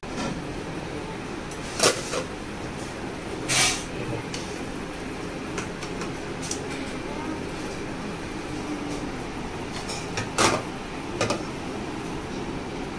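Serving spoons and plastic container lids clattering against bowls and plates at a dining table, a few short sharp clinks and knocks over a steady background hum.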